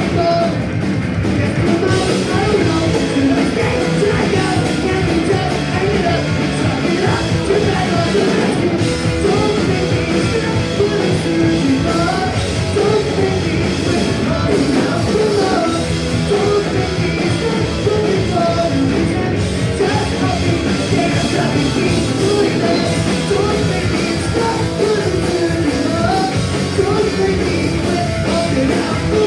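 Punk rock band playing live at full volume, with the full band running throughout and a voice singing and shouting over it.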